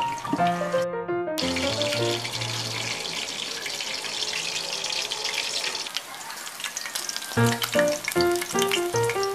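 Background music, then after a short break about six seconds of a boneless milkfish (bangus) frying in hot oil in a lidded pan: a steady sizzle. The music comes back near the end.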